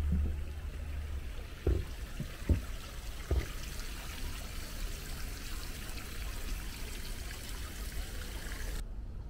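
Water pouring from stone dragon-head spouts into a lotus pond, a steady splashing trickle that cuts off abruptly near the end. A few short, dull low thumps stand out in the first few seconds.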